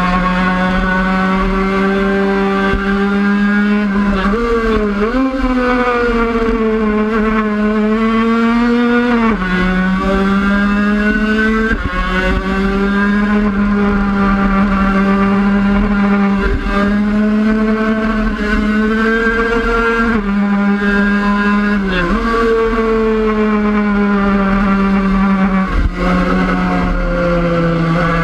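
Engine of a 50cc race motorcycle heard from on board. It runs hard at high revs with a steady, high-pitched note, which dips briefly and recovers several times.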